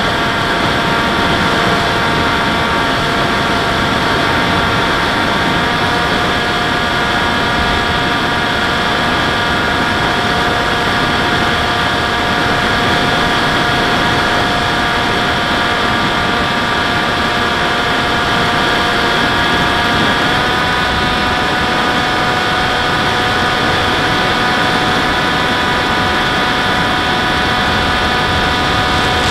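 FPV model aircraft's motor and propeller running steadily in flight, heard from the onboard camera: a whine of several steady tones over the rush of air. The pitch steps up slightly about six seconds in and again about twenty seconds in.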